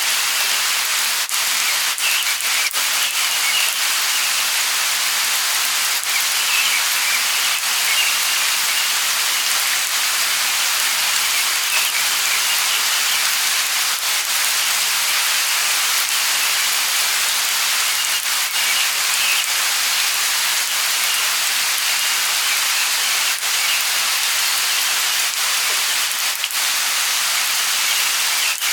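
Light rain falling steadily, an even hiss with scattered sharper drop ticks.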